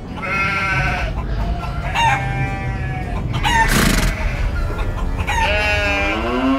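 A rooster crowing several times, the last crow trailing off downward in pitch, over a steady low rumble.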